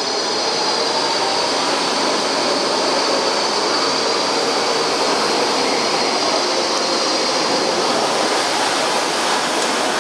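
Baltimore Metro Subway train pulling out of an underground station past the platform: a loud, steady rush of wheels on rail with a thin high whine on top.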